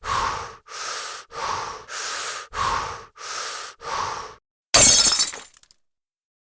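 A rhythmic run of short breathy, noisy bursts, about one every 0.6 s, then a sudden loud crash like glass shattering about five seconds in.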